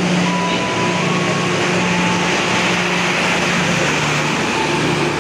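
Locomotive-hauled passenger train's coaches and power car rolling past at close range: steady wheel-on-rail rolling noise with a continuous low hum.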